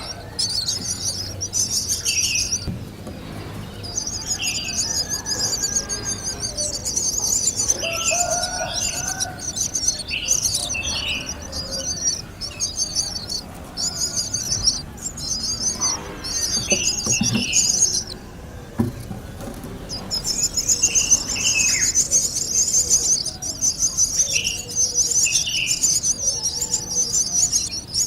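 Birds chirping: a high, buzzy trill repeats in bouts of a second or two, with short, lower chirps in between.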